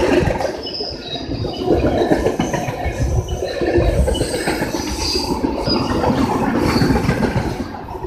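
Freight train cars rolling past close by, rumbling and clattering over the rails, with short high-pitched wheel squeals coming and going.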